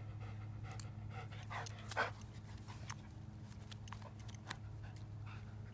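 An Akita dog panting with its tongue out after running, with one brief louder sound about two seconds in. A steady low hum runs underneath.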